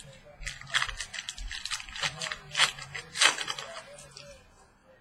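Trading cards and their pack wrapping being handled: a quick run of crinkles, rustles and snaps that stops about four seconds in.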